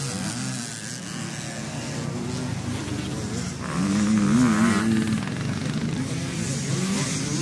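Classic off-road motorcycles racing on a dirt motocross track, several engines revving up and down as riders come over the hill one after another. The loudest revving comes about four seconds in.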